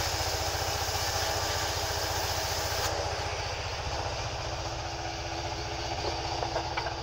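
Sawmill band saw and its drive running, a steady machine drone with an even low throb. The high hiss drops away abruptly about three seconds in, and a few light knocks come near the end.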